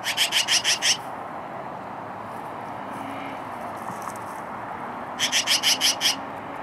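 Magpies chattering: two quick runs of six or seven rapid notes, one right at the start and another about five seconds in, over steady background noise.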